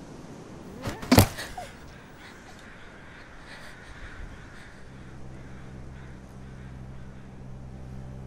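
A single loud, sharp impact about a second in, with a short ringing tail, followed by faint crow caws; from about five seconds a low, steady hum comes in.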